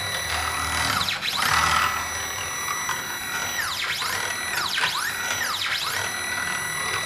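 STEPCRAFT CNC router's X-axis stepper motor and ball screw driving the gantry at high rapid speed and acceleration. It makes a musical whine that holds one pitch while travelling, and swoops down and straight back up several times as the axis stops and starts again. The axis is being pushed well past its recommended feed rate to find where it starts losing steps.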